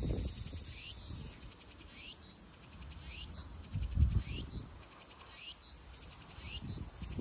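A small animal's short rising chirp, repeated evenly about once every three-quarters of a second. Low rumbling bumps come and go underneath, the loudest about four seconds in.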